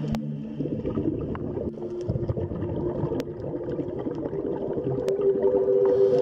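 Ambient background music of long, slowly shifting held tones in a whale-song style, with a few sharp clicks.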